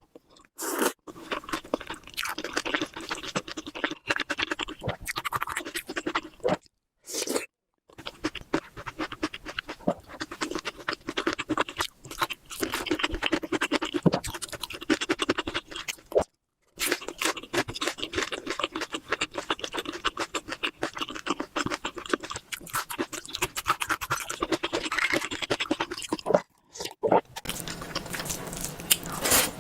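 Close-miked eating: wet chewing with crackly, crunchy mouth sounds, a dense run of small clicks, broken by a few brief silences.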